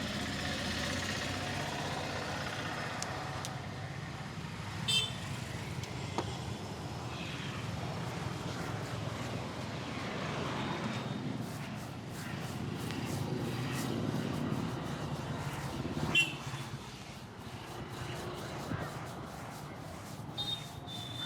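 Street traffic noise: a steady low rumble of passing vehicles, with two short, sharp high-pitched sounds, about five seconds in and again near sixteen seconds.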